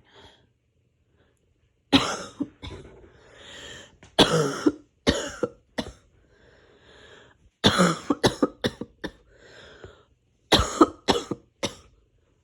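A person in a harsh coughing fit from a cold: after a quiet start, coughs break out about two seconds in and come in rapid runs of several at a time, with noisy breaths drawn in between.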